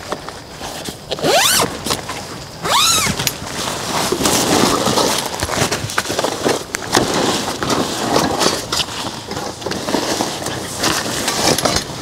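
Close, irregular crackling and rustling with many sharp clicks. In the first three seconds there are two short pitched calls, one rising and one that rises and falls.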